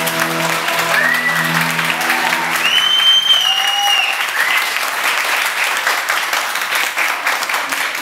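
Audience clapping and cheering, with a few high whoops, while the show music fades out in the first two or three seconds.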